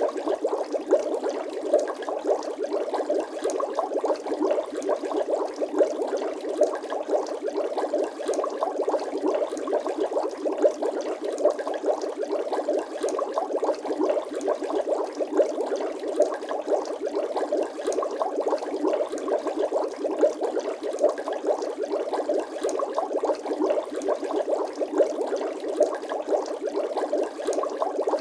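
Water bubbling steadily: a dense, unbroken stream of small bubble pops, the bubble sound effect of a relaxation loop.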